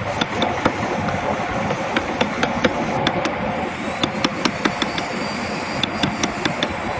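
Hand carving chisels and gouges cutting into hardwood, heard as an irregular run of sharp taps, a few each second, over a steady background hum.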